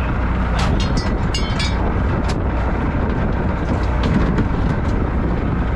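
Fishing boat's engine running steadily with a low rumble, under a few sharp knocks and rattles from plastic fish totes being handled in the hold, clustered about half a second to two and a half seconds in and again about four seconds in.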